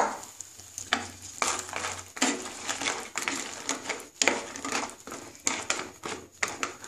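Wooden spatula stirring bori dumplings through a thin gravy in a non-stick pan: a loud knock at the start, then a string of uneven scrapes and knocks against the pan, over a faint steady sizzle of the simmering gravy.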